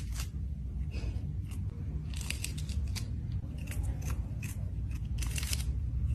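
A kitten crunching on a dried fish: an irregular run of short, crisp crunches, some in quick clusters, over a steady low rumble.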